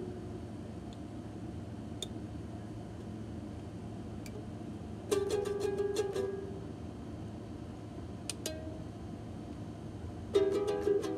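Plastic toy guitar strummed in two short bursts of quick strokes, about five strums each, one about five seconds in and another near the end.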